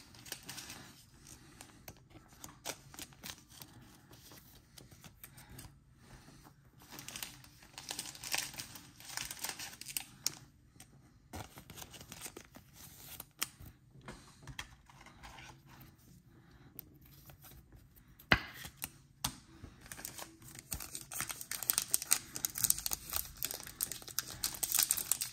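Soft, scattered rustles and clicks of trading cards being handled and slid into a thin plastic card sleeve. Over the last few seconds a foil card pack is torn open, and its wrapper crinkles louder and more steadily.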